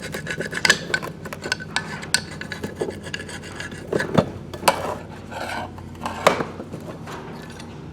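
Hand work on a transfer case: rasping, scraping metal parts with frequent sharp clicks and knocks, over a steady low hum.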